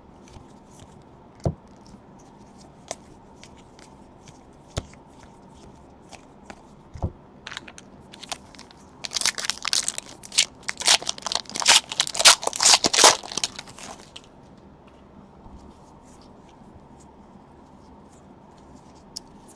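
A foil trading-card pack wrapper is torn open and crinkled by hand: a dense run of tearing and crinkling lasting about five seconds midway through. A few scattered light clicks come before it.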